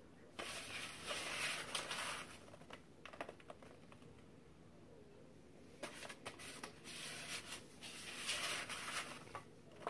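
Kinetic sand being squeezed, crumbled and pressed by hand on a tray, a dry crackly rustle. It comes in two main spells, from about half a second to two and a half seconds in and again from about six to nine seconds.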